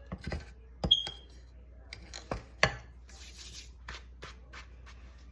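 Crisp crunches and scrapes of dry cornstarch crunchies being handled and eaten, with one short ringing clink about a second in.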